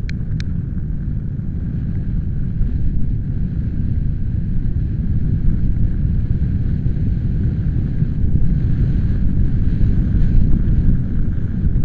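Strong wind gusting over the microphone: a dense, low buffeting rumble that swells a little louder in the second half. Two brief high chirps sound right at the start.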